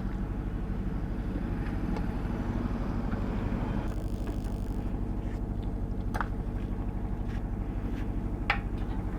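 An engine idling steadily with an even low pulse, with two sharp clicks about six and eight and a half seconds in.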